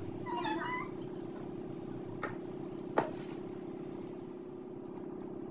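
Cola poured from a plastic bottle into a stainless steel tumbler over a steady low hum, with a sharp clink about three seconds in and a lighter click just before it.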